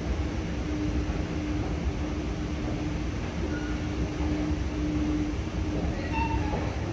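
Escalator running: a steady rumble of the moving steps with a constant hum from the drive.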